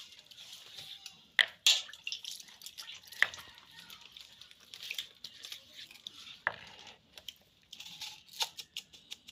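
A stone roller scraping and rubbing across a wet flat grinding stone (shil-nora) as water is splashed over it, with several sharp stone-on-stone knocks.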